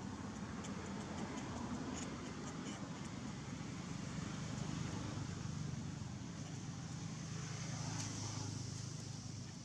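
Steady low rumble of outdoor background noise, with a few faint ticks in the first few seconds.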